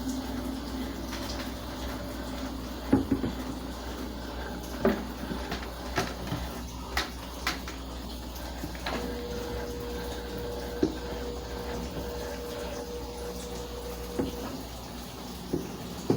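Consul CWS 12 washing machine at work, water running and splashing in the tub over a low steady hum. Irregular sharp knocks come through throughout, and a steady whine sets in about nine seconds in and stops near fourteen.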